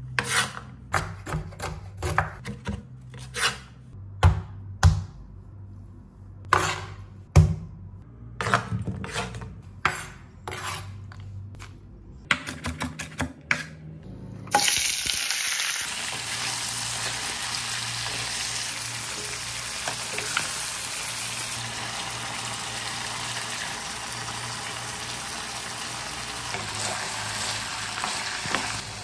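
A run of irregular sharp knocks and clacks of kitchen utensils. About halfway through, hot oil suddenly starts sizzling loudly, as food goes into the pan, and keeps sizzling steadily.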